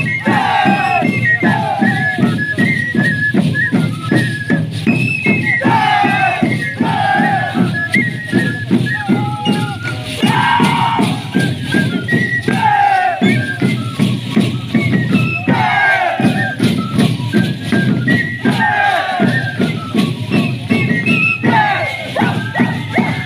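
Andean folk dance music from a live band, a melody in repeated falling phrases, over the steady rattling of shacshas, dried seed-pod rattles worn on the dancers' shins.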